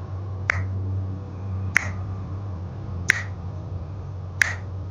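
Four sharp, short clicks, evenly spaced about a second and a third apart, over a low steady hum.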